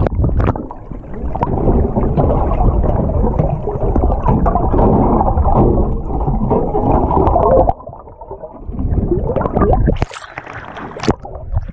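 Muffled underwater rumble and gurgling of water around a submerged camera, followed by splashing as the camera breaks the surface about ten seconds in.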